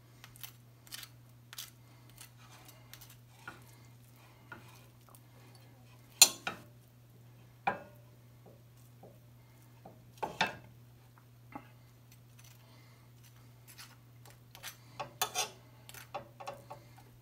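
Table knife scraping and clicking against a china plate while spreading butter on pancakes: scattered irregular clicks and scrapes, the loudest a little over six seconds in, over a low steady hum.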